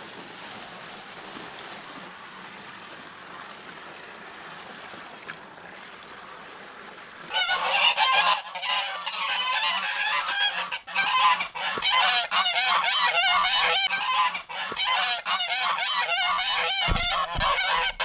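White domestic geese honking loudly, several birds calling over one another in a continuous clamour that breaks out about seven seconds in; before that only a steady background hiss.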